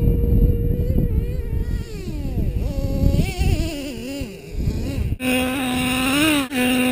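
Small two-stroke engine of a radio-controlled off-road truck, running with a steady high whine. Its pitch then falls and wavers as the throttle is eased and worked. After an abrupt cut about five seconds in, an engine runs steadily again at a lower pitch.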